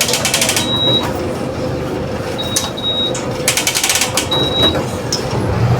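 Volkswagen 17.230 OD city bus engine running steadily, heard from inside the cabin. Over it come short high electronic beeps, single and paired, and two brief bursts of rapid ratcheting clicks.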